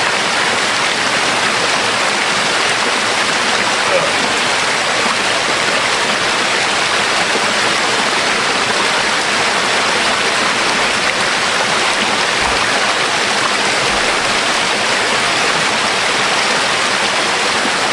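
Waterfall rushing: a steady, loud hiss of falling water.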